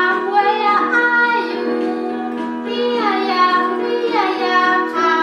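A children's song: children singing over steady instrumental backing.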